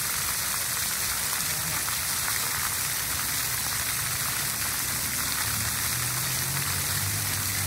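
Splash pad water jets and a mushroom fountain spraying steadily, the water pattering down on wet concrete.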